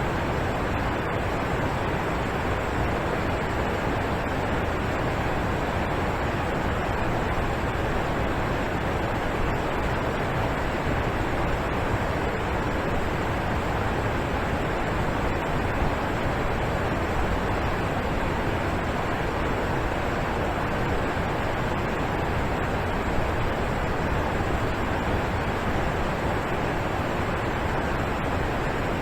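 Alpine waterfall crashing down into its pool: a steady, even rush of falling water.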